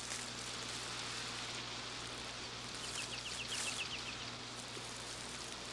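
Soft, steady hiss of outdoor nature ambience over a low hum. About three seconds in, a quick run of about eight short, high, upward chirps.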